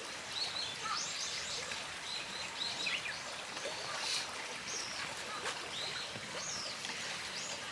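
Small birds chirping over and over, short rising and falling calls, above a steady hiss of flowing river water.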